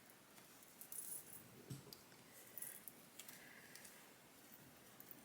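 Faint, scattered small clicks and rustling: the metal clips inside a U-part wig being snapped shut into the hair.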